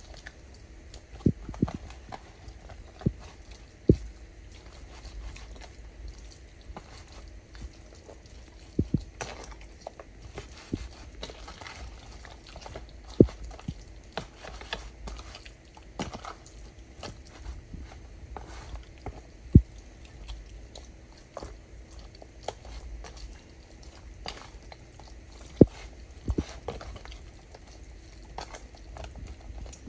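Wet squelching and slapping of raw meat being mixed and rubbed by hand in an oily herb marinade in a plastic container, with a sharp knock now and then.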